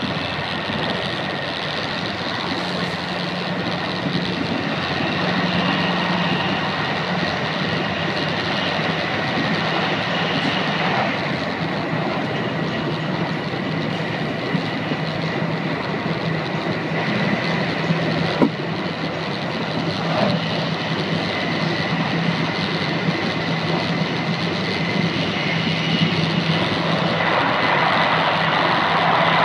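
Jōetsu Shinkansen train running at speed, heard from inside the passenger cabin: a steady rush of noise with a low hum and a thin high whine through it. It grows louder near the end.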